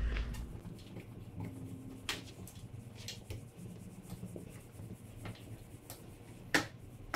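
Felt whiteboard eraser rubbing across a whiteboard, with a few light knocks and one sharper knock near the end.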